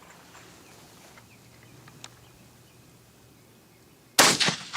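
A single rifle shot from a Swiss K-31 bolt-action rifle in 7.5x55mm, sudden and loud near the end, with a brief echo. Before it, a quiet stretch with faint bird chirps and a small click about two seconds in.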